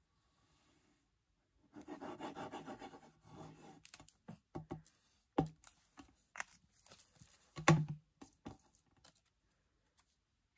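Paper and a plastic liquid-glue bottle being handled on a cutting mat. The bottle's tip scrapes along the paper for about a second and a half, then come scattered clicks and taps, with one sharp knock about three-quarters of the way through as the loudest sound.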